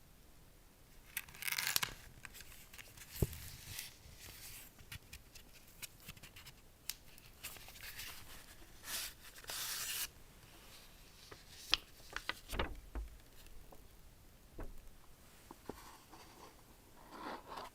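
Packaging being handled and torn open by hand: rustling, tearing and scraping, with scattered sharp clicks and taps. The longer hissing tears come about two seconds in and again around nine to ten seconds in.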